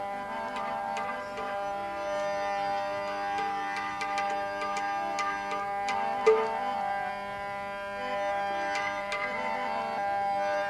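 Instrumental interlude of a live bhajan: tabla strokes over sustained melodic accompaniment, whose held notes shift every couple of seconds, with one sharper stroke about six seconds in.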